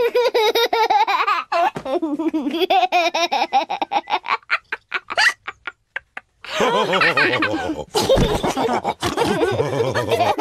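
Cartoon pigs laughing: a small child's giggling laughter at first, then from about six and a half seconds several voices laughing together, louder and fuller.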